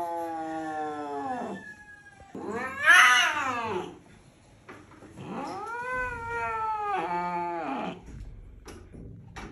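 Angry domestic cat yowling while held down: three long drawn-out yowls, the middle one the loudest and highest.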